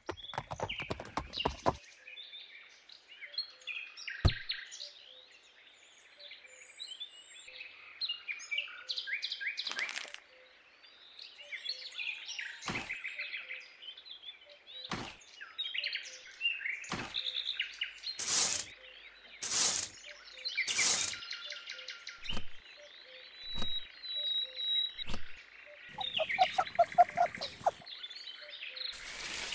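Small birds chirping steadily, broken by a dozen or so sharp knocks and short noises, the loudest three about a second apart past the middle.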